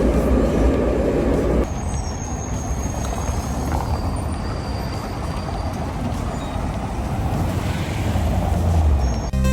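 Large vehicle running with a steady low rumble; a loud rushing hiss cuts off suddenly about two seconds in.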